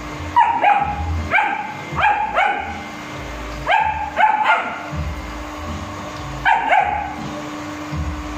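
German Shepherd puppy barking at a robot vacuum: about ten high, short barks in quick bursts of two or three, each dropping slightly in pitch, with a pause of nearly two seconds before the last pair. A steady low hum, the robot vacuum running, sits underneath.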